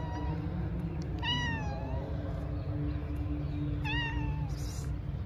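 A cat meowing: two drawn-out meows, one about a second in and one about four seconds in, each falling in pitch at the end.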